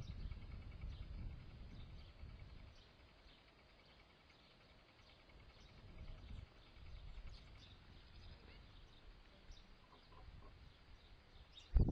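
Small garden birds chirping in short, scattered calls over a low rumble that is heavier in the first few seconds. A loud thump comes just before the end.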